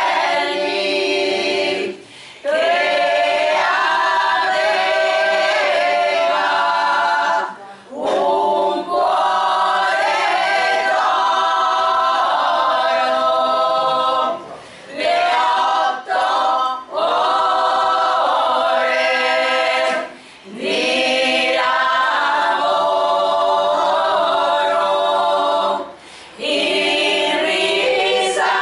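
Small women's choir singing a cappella, the phrases broken by short pauses for breath every few seconds.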